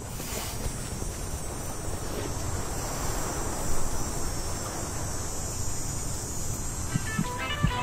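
Outdoor ambience of insects chirping in a steady high buzz over a rush of wind. A few plucked music notes come in near the end.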